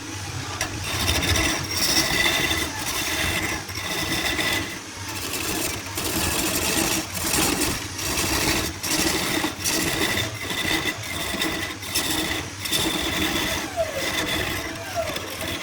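Electric power tool working wood: a steady motor hum under a cutting, rasping sound that comes and goes in short repeated passes.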